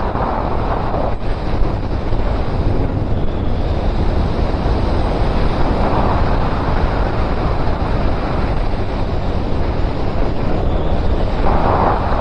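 Wind rushing hard over the microphone of a camera on a moving Suzuki Bandit 1250 motorcycle, with the bike's engine running as a steady low drone underneath; the wind swells in gusts about halfway through and again near the end.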